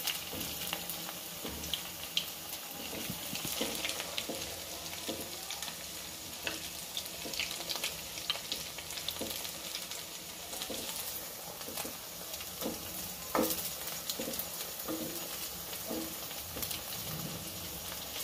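Chirer pitha balls deep-frying in hot oil in a kadai, a steady crackling sizzle as they cook to golden brown. A metal spoon turning the balls now and then scrapes and knocks against the pan, most sharply about 13 seconds in.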